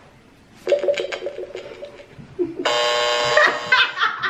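Lie detector game's electronic signal: a stretch of warbling electronic tones, then a loud, harsh steady buzz for under a second about two and a half seconds in. The buzz marks the answer as a lie.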